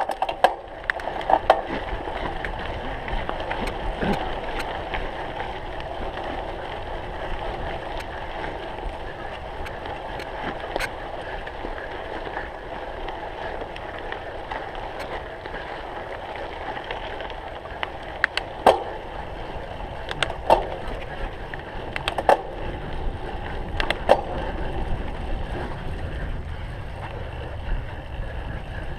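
Cyclocross bike riding over a rough course: tyres rolling over bumpy ground, with sharp knocks and rattles. Four of the knocks, in the second half, fall about two seconds apart.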